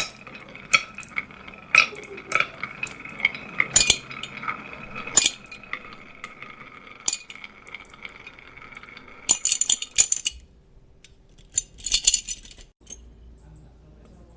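Marbles rolling and clacking down a wooden marble run: a steady ringing hum while they roll, broken by sharp clicks as they strike the track pieces, then a quick clatter of clacks about nine seconds in and again near twelve seconds.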